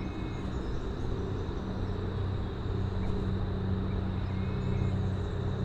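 A steady low motor hum with a constant faint high-pitched tone above it.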